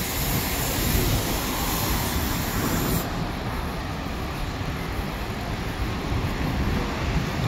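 Street traffic noise: a steady rumble and hiss of passing vehicles, with a brighter hiss over it for about the first three seconds.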